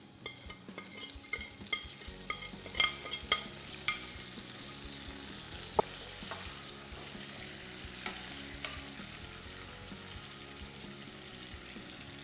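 Butter and meat juices sizzling in a stainless-steel frying pan as a pan sauce is mounted with butter. A spatula scrapes and knocks against the pan in the first few seconds, then the sizzle runs on steadily with a few light taps.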